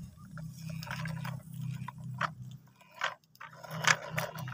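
Plastic toy vehicles being handled, with scattered light clicks, knocks and scrapes over a faint steady low hum.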